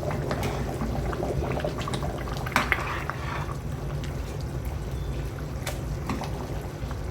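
Pot of egusi soup simmering and bubbling with small pops, with a brief louder noise about two and a half seconds in.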